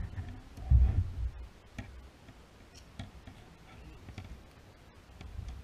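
Light handling noise from pulling weeds off a fishing lure and line: a soft low thump about a second in, then a few scattered small clicks.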